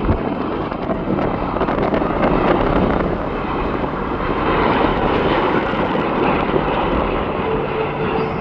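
Jet airliner engine noise, steady and fairly loud, with a faint steady tone coming in near the end.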